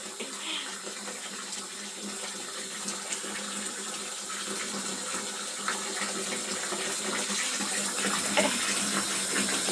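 Tap water running in a steady stream, getting slightly louder towards the end.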